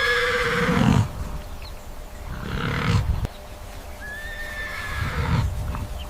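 Horse whinnying: three calls a couple of seconds apart.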